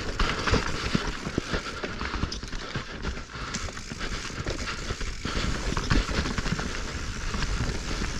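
Mountain bike riding over rocky singletrack: a steady rush of tyre and riding noise with many small knocks and rattles as the wheels hit rocks and the bike clatters.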